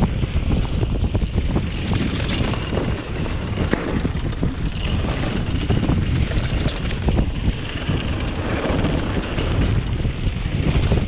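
Wind buffeting the microphone in a steady, gusty rumble, over the wash of ocean surf.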